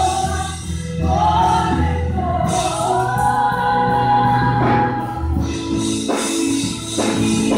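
Live gospel worship music: women singing into microphones, holding long sustained notes over steady low accompaniment, with a few sharp percussive hits in the second half.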